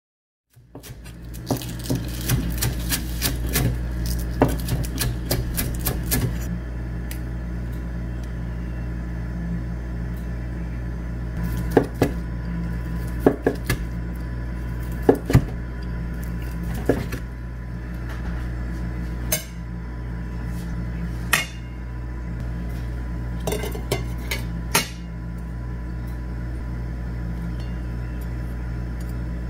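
Kitchen knife slicing a cooked chicken breast and cutting green onion, blade knocking on a wooden cutting board and a plate: a quick run of knife strikes in the first few seconds, then scattered single knocks, over a steady low hum.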